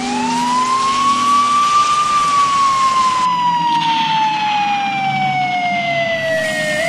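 A siren wailing: its pitch climbs for about two seconds, sinks slowly for the next five, and starts climbing again near the end. A rain-like hiss under it cuts off about halfway through.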